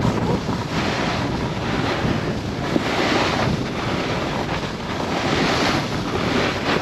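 Wind buffeting the microphone while riding, with snowboards hissing and scraping over slushy snow. The rush swells and eases every second or so.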